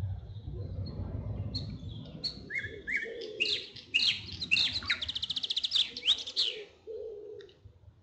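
Songbird singing a varied phrase of high chirps and whistles that speeds into a fast, even trill about two-thirds through, then breaks off. A low rumble sits underneath in the first couple of seconds.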